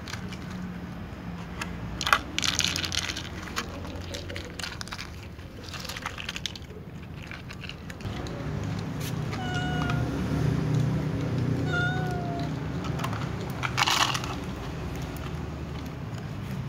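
Domestic cat giving two short meows a couple of seconds apart, begging to be fed. A few bursts of rustling come before and after, and a low steady hum runs underneath.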